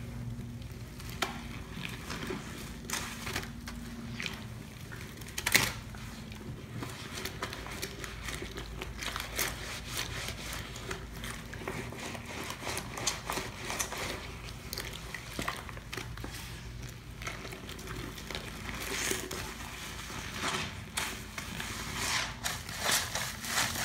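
Rubber-gloved hands squeezing and scrubbing sponge pieces in a basin of foamy cleaning water: wet squishing and sloshing with crackling suds, irregular throughout, with one sharper, louder squelch about five and a half seconds in. A steady low hum runs underneath.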